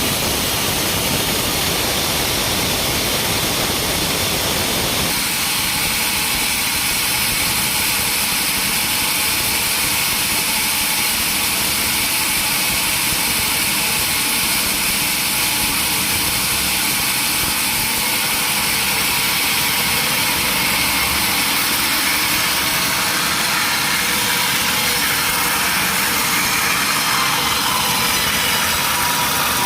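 Sawmill machinery running steadily and loudly, a saw at work on timber; its sound changes about five seconds in.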